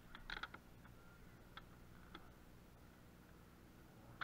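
Near silence broken by faint clicks and light plastic taps from handling gear in a kayak's milk crate: a quick cluster about half a second in, a couple of single clicks after, and one more at the end.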